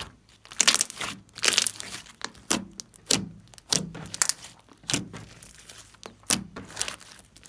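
Hands squeezing and pressing slime, making a run of crackling, squishing bursts about one or two a second.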